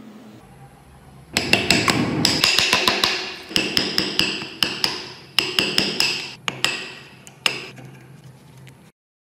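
Hammer blows on a steel punch, knocking rusted, rotten wood out of a kukri's metal handle ring. A quick run of sharp, ringing metallic taps begins about a second and a half in, then thins to single taps, the last about seven and a half seconds in.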